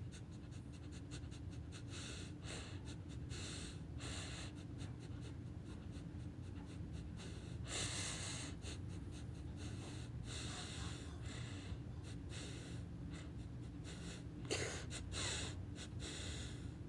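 Dog sniffing, faint: many quick, irregular short sniffs, with a few longer snuffles in between.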